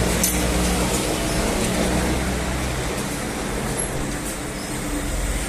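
Steady motor-vehicle and traffic noise: a continuous low engine hum over road noise.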